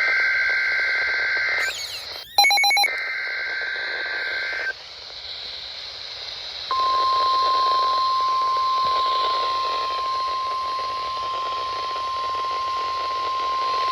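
Emergency Alert System SAME header data bursts over a weather-radio receiver: two stretches of fast two-tone data chatter, split by a short harsh buzz about two and a half seconds in. About seven seconds in, a steady single-pitched 1050 Hz NOAA Weather Radio alert tone starts and holds, over radio hiss, signalling that a weather warning message follows.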